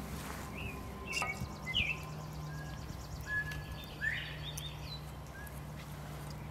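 Woodland birds chirping and whistling, with a quick high trill about a second in and a rising chirp about four seconds in. There are a few faint clicks as dry sticks are picked up off the forest floor.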